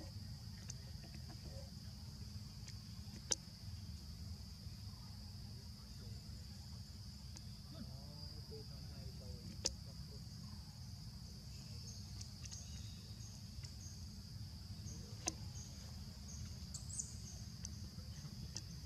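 Steady high-pitched insect drone over a low outdoor rumble, broken by three sharp clicks spaced several seconds apart.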